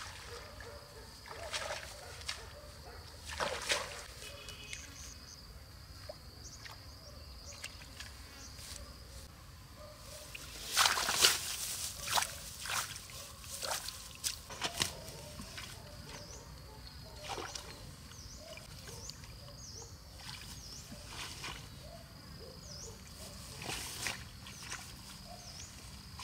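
Hands rustling through wet grass and sloshing in shallow muddy water, in irregular strokes with a louder run of splashes about eleven seconds in. Behind it, a steady high insect buzz with short repeated chirps.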